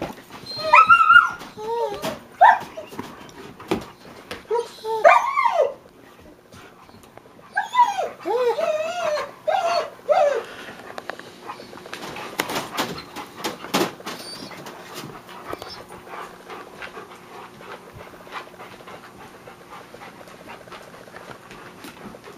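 Dogs playing tug of war with a sock: high, gliding whines and yelps come in several bursts in the first half, followed by a few clicks and knocks of scuffling, then quieter rustling.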